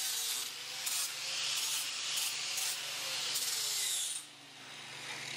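Angle grinder with a flap disc grinding and rounding the edges of quarter-inch steel plate: a steady abrasive hiss over the motor's whine. About four seconds in, the grinding eases off briefly and the whine falls in pitch, then it picks up again.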